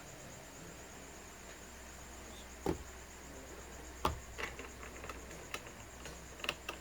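A few sharp clicks and light taps from tools and multimeter probes being handled on an electronics workbench: two louder clicks in the middle, then a run of smaller taps. Underneath is a steady faint high-pitched electronic whine and a low hum.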